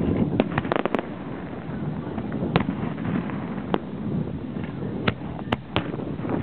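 Aerial firework shells bursting with sharp bangs: a quick cluster of several in the first second, then single bangs every second or so, over a steady low rumble.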